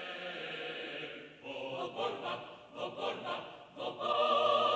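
A choir singing, with sung notes held and swelling louder near the end.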